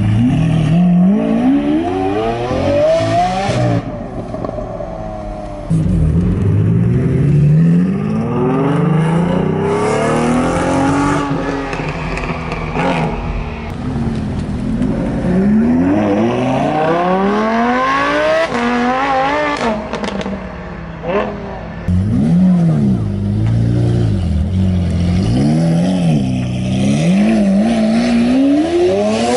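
Lamborghini supercars, an Aventador's V12 and a Huracán's V10, accelerating hard away one after another. Their engine pitch sweeps up again and again as they rev through the gears.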